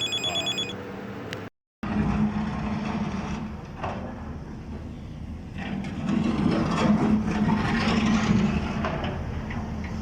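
An electronic telephone ring, a fast warbling tone, ends about a second in. After a brief cut, a steady background rumble with a low hum fills the rest and gets louder after about six seconds.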